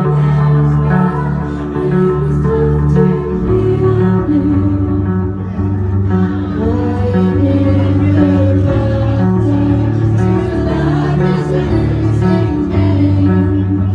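Live band music: electric bass guitar notes under guitar, with a woman singing.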